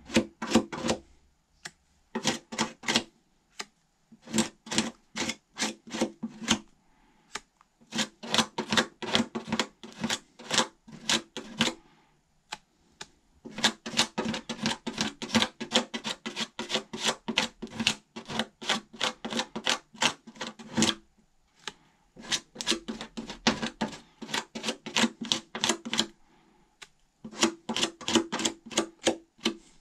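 Quick back-and-forth scraping strokes of a hand tool on body filler on a car fender, about four a second, in runs of several seconds broken by short pauses.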